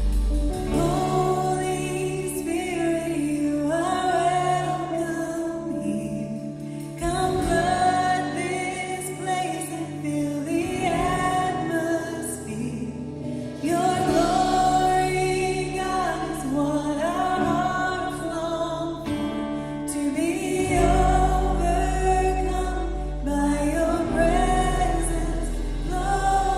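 Live contemporary worship band playing a slow song, with singing voices in phrases a few seconds long over sustained low bass and keyboard notes, recorded from the room.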